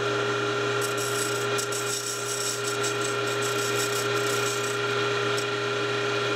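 Small lathe running with a steady hum and whine while a hand tool scrapes the spinning wooden model wheel, a scratchy shaving sound from about a second in until near the end.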